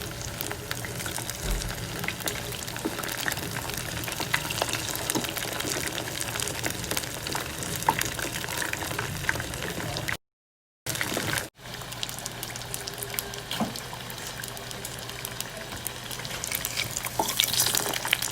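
Battered chicken wings deep-frying in hot oil: steady bubbling with dense fine crackles, cut to silence for a moment about ten seconds in and growing louder near the end.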